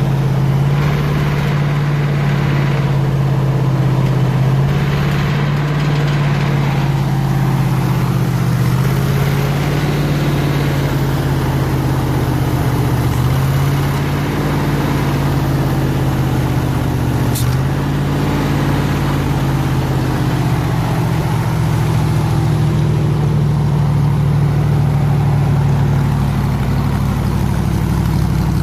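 Gasoline engine of a 302 air compressor running steadily at idle, its speed shifting slightly up and down every few seconds. One brief click about two-thirds of the way through.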